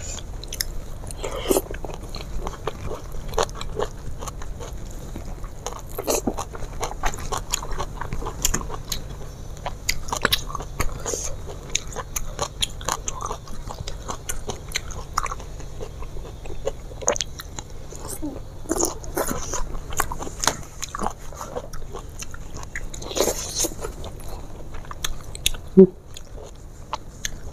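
Close-miked eating sounds: a person biting and chewing crunchy food, with many short crisp crunches at irregular intervals, and one sharper knock near the end.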